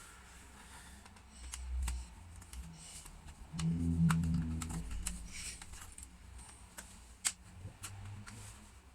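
Scattered light clicks and taps of a laptop's plastic case and clips being handled and pried apart, with a brief low hum around the middle.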